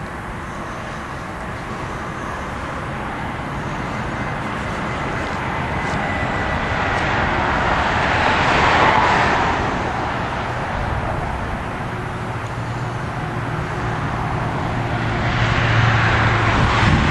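Road traffic noise, with passing vehicles swelling louder about halfway through and again near the end.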